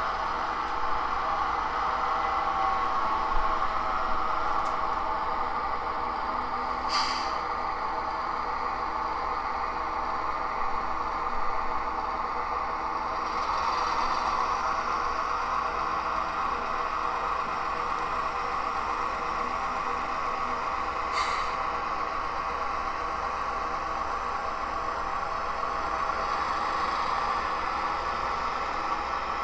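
HO scale model diesel locomotive with a sound decoder, playing a steady running diesel engine sound through its small speaker. Two brief hisses of air come about a quarter of the way in and again about two-thirds in.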